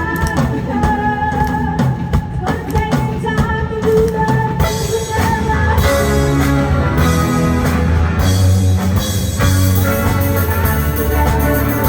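Rock music with drums, guitar and singing, growing fuller and heavier about halfway in.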